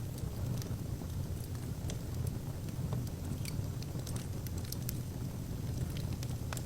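Wood fire burning in an open fireplace: a steady low rumble of the flames with irregular sharp crackles and pops from the burning logs.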